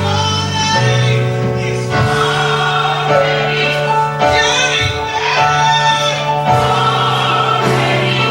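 Gospel choir singing with instrumental accompaniment, over sustained bass notes that change every second or two.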